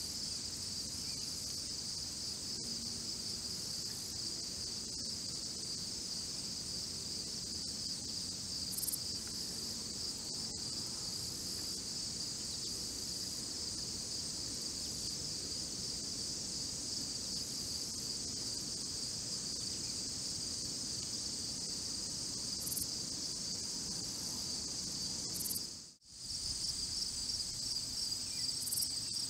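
A dense chorus of insects trilling steadily in a high band, with faint low noise beneath. It cuts out for a moment near the end and comes straight back.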